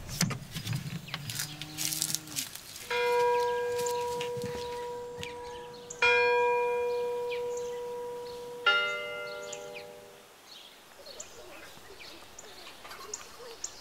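A church bell struck three times, about three seconds apart, each stroke ringing out and slowly fading; the third stroke has a different tone. Just before the bells, a few knocks and clicks from the wooden door being locked.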